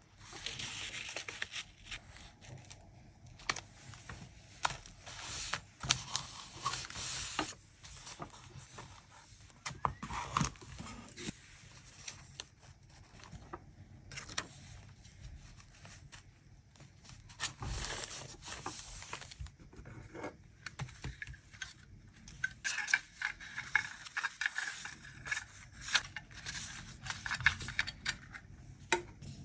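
Close-up paper and sticker handling: stickers and paper pieces peeled from their backing sheets, slid and pressed onto journal pages, with irregular rustling, scratches and small clicks and taps from metal tweezers.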